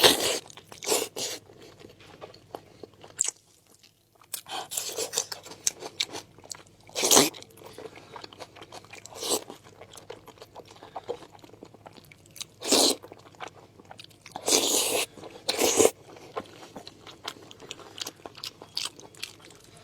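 Close-up chewing and biting of soft braised pork knuckle skin and meat, in irregular bouts with a few louder bites.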